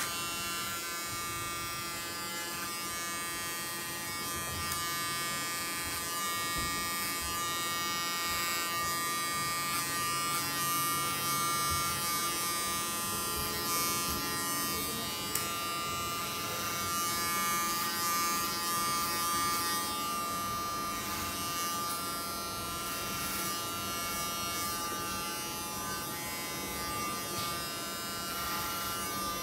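Electric hair clippers switching on and buzzing steadily while cutting the hair at the sides and back of a man's head short.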